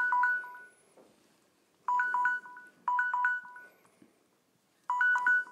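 Smartphone countdown timer alarm going off: short bursts of quick beeps on two alternating pitches, repeating about four times with brief gaps. It signals that the one-minute timer has run out.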